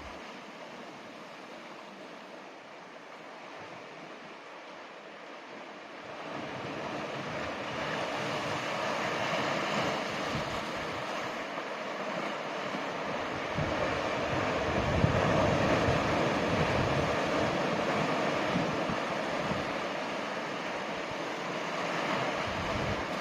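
Ocean surf and wind: a steady rushing noise that swells about six seconds in and is loudest around the middle.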